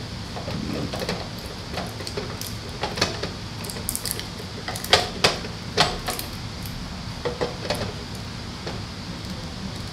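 Plastic parts of a Philips masticating juicer being fitted together: irregular clicks and knocks as the juicing unit is twisted and pressed onto the motor base, a few sharper ones a little after the middle.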